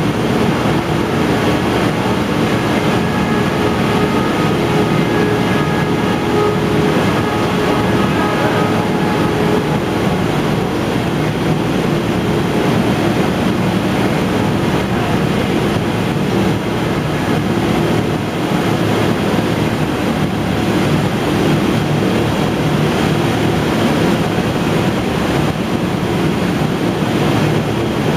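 Factory machinery on a hide-processing line running steadily: a loud, continuous din of conveyors and machines with a steady low hum. A faint higher whine fades out about a third of the way in.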